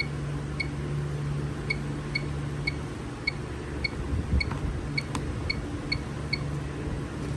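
Napco alarm keypad beeping once for each key press: a run of about a dozen short, identical high beeps, roughly two a second, that stop a little over six seconds in. A low steady hum runs underneath.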